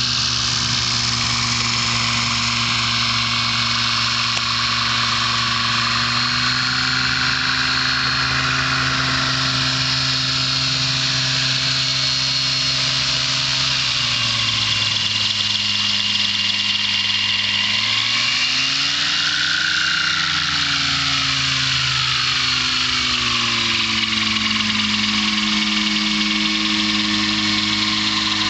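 Avid Flyer STOL ultralight's Rotax 532 two-stroke twin engine and propeller running at taxi power, a steady buzzing drone. The engine pitch drops about halfway through, swells up and falls again briefly, then rises near the end as the plane taxis close by.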